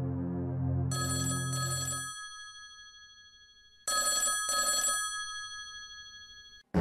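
Telephone ringing twice, each ring a quick double burst of steady tones, about three seconds apart, dying away after each. A low music drone fades out under the first ring, and new music starts abruptly at the very end.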